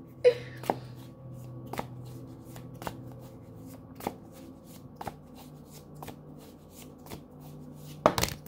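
A deck of tarot cards being overhand-shuffled in the hands: a run of soft card clicks and slaps, a few a second, with a louder flurry of card noise near the end.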